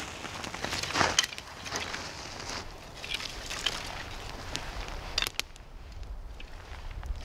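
Dry wood being broken and handled: irregular cracking and splintering, densest about a second in, with a sharp crack a little after five seconds.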